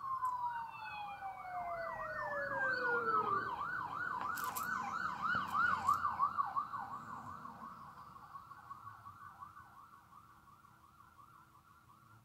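Two ambulance sirens going by at once: one long wail sliding down in pitch over the first few seconds, while the other warbles rapidly and fades away toward the end.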